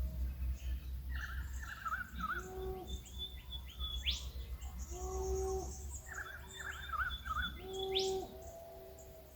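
Birds singing in an early-morning chorus. A song of warbling phrases and short whistles repeats about every four seconds, with a sharp rising whistle twice, over a low steady rumble.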